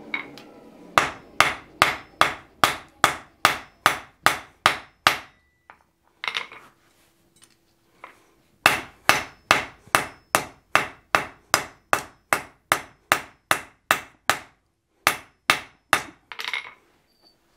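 Hand hammer striking a glowing-hot 1045 steel bar on an anvil, about three blows a second, in two long runs with a pause between and a few more blows near the end. The steel is being bevelled for a forge weld.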